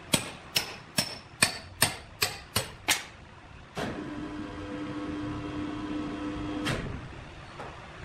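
A series of about eight quick hammer strikes, roughly two and a half a second, each ringing briefly. After a short pause a steady machine hum starts and runs for about three seconds before cutting off.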